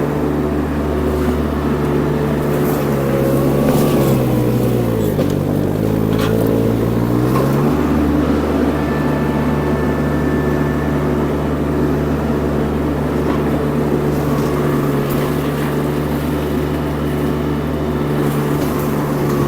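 Mini skid steer engine running hard with a forestry mulcher attachment. From about three seconds in, the engine pitch sags for a few seconds under load as it bogs down, then climbs back to steady high revs.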